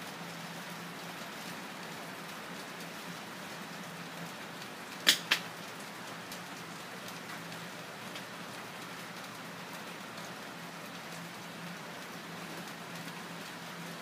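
Steady soft hiss with a faint low hum, broken about five seconds in by two sharp clicks in quick succession.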